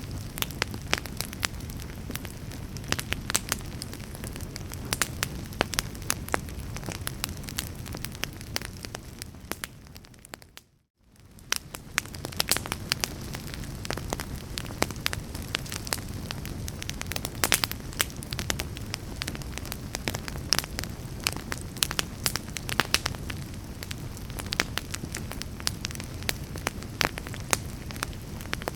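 A fire burning steadily with a low rumble, sharp crackles and pops going off many times a second. About ten seconds in the sound briefly fades out to near silence and fades back in.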